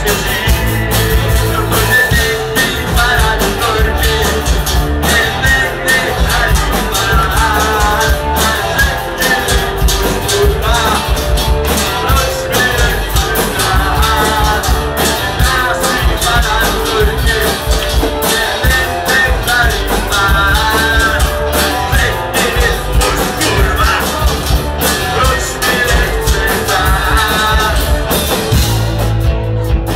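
Live rock band playing loudly: a voice singing over electric guitar, bass and drums.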